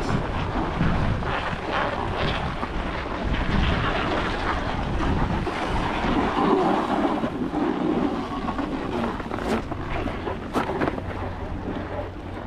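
Gusty wind blowing across the microphone as a dense, rumbling rush that rises and falls. A few sharp clicks come through it in the last few seconds.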